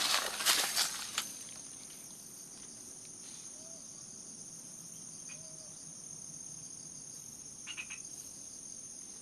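Insects, crickets by their sound, chirring steadily at two constant high pitches. A few crunching footsteps through dry vegetation come in the first second.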